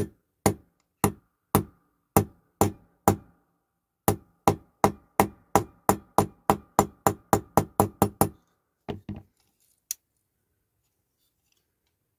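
Sharp metallic taps through an old socket, driving a tight-fitting part down on a die-cast toy. About seven steady taps come first, roughly two a second. After a short pause comes a quicker run of more than a dozen taps that speeds up, then a few last light taps.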